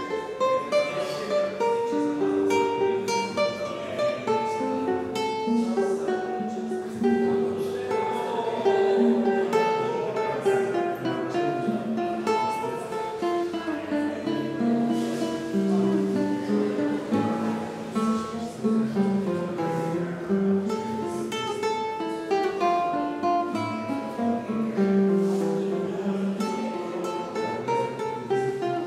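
Solo classical guitar, fingerpicked: a melody of plucked notes over a moving bass line, played continuously.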